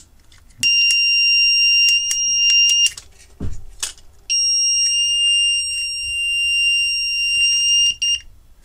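LED clock kit's buzzer sounding two long steady high-pitched beeps, the first about two seconds long and the second about four, while its push-buttons are pressed, with small clicks from the buttons and handling of the case.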